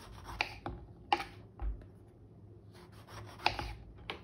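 Knife cutting through grapefruit rind and knocking on a plastic cutting board: a few sharp taps and scrapes, the loudest about a second in and again near three and a half seconds, with one dull thump in between.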